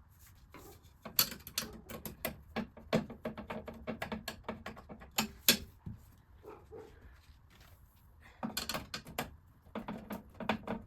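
Quick, irregular clicks and taps of hands working small screws and fitting the cutting board onto the front of a Procolored K13 Lite DTF printer. They come in two runs, the second starting near the end.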